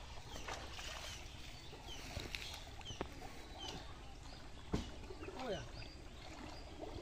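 Muddy pond water sloshing and trickling quietly as a man wades and gropes for fish with his hands under the surface, with one sharp click about five seconds in.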